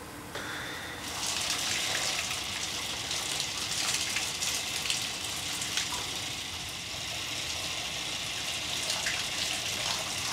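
Shower running: a steady hiss of spraying water that starts about half a second in and comes up to full strength about a second in.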